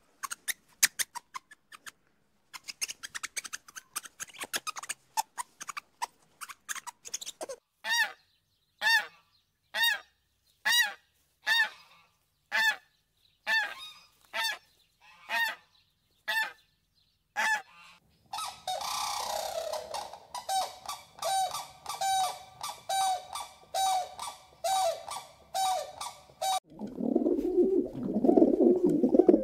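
White domestic goose honking over and over, about one honk a second, then faster honking of about two a second over a rushing background. Near the end the honks give way to pigeons cooing.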